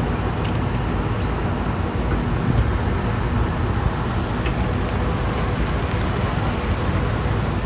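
Excavator's diesel engine running steadily with a constant low hum.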